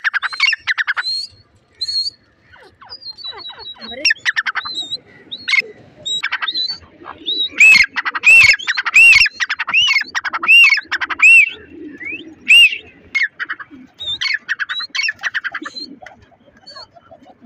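Grey francolin calling loudly: bursts of fast clicking notes and a run of repeated rising-and-falling whistled notes, loudest in the middle. Low pigeon coos sound underneath at times.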